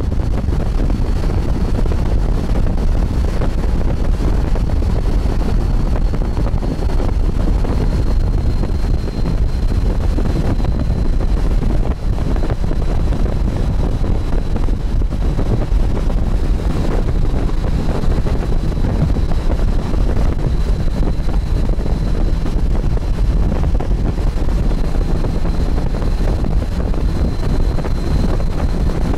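Steady wind noise buffeting the microphone over a motorcycle running at cruising speed, with a faint high whine underneath.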